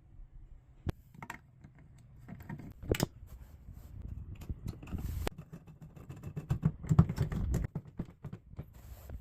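Irregular clicks, knocks and scraping of a tool being worked in a clogged bathtub drain. It starts sparse, with a sharp click about three seconds in, and gets busier with a low rumble in the second half.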